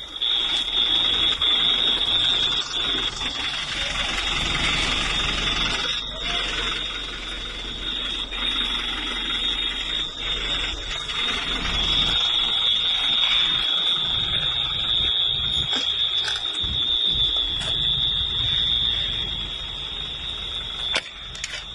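A high-pitched alarm sounding as one continuous steady tone, setting in sharply, over a rough background noise with a low rumble.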